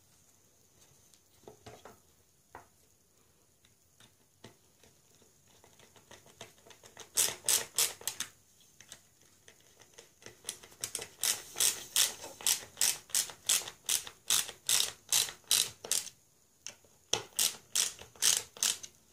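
Hand screwdriver driving wood screws into the pre-drilled holes of a wooden scarf loom frame: a few faint clicks at first, then runs of sharp, regular clicks about three a second, with a short pause near the end.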